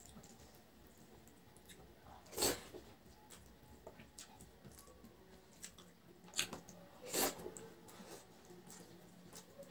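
Eating rice by hand: quiet squishing of fingers mixing rice with curry on the plate, and chewing. Three short louder noises stand out, one about two and a half seconds in and two around six to seven seconds.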